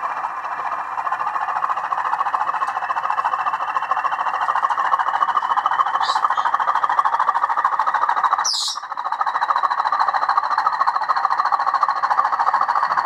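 Bachmann Class 20 model locomotive's sound decoder playing the Class 20 diesel engine sound through its stock speaker, which sounds thin and tinny, as the loco is run. A faint whine climbs slowly in pitch.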